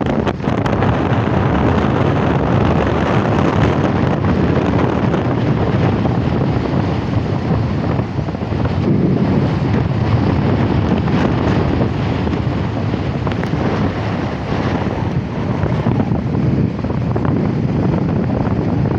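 Wind buffeting the microphone, loud and steady, over the wash of sea waves.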